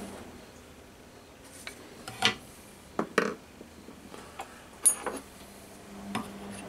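A handful of short clinks and knocks as a metal square and wooden blocks are set down and handled on a metal drill press table.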